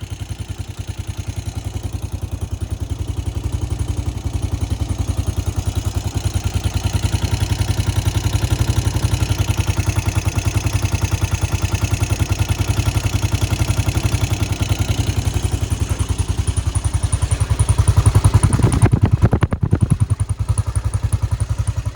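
ATV engine idling steadily, an even stream of firing pulses, louder for a few seconds near the end. It keeps running without quitting or hesitating, though it had been suspected of starving for fuel.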